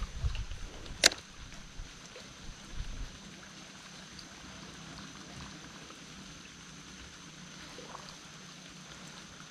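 Casting and handling a baitcasting rod and reel from a boat: low handling thumps in the first few seconds and one sharp click about a second in, then a faint, steady background hiss while the bait sits in the water.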